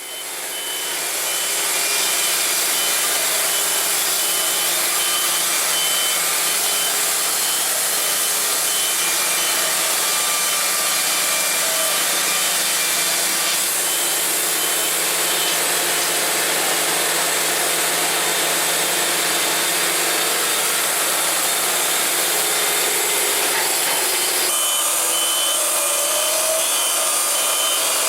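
Wood-Mizer LT70 band sawmill running, its blade cutting through a log: a loud, steady sawing noise that fades in at the start and changes abruptly twice, about halfway through and near the end.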